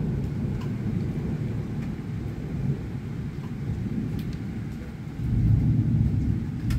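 Thunder rumbling low and continuously, swelling louder about five seconds in, with a few faint ticks of rain.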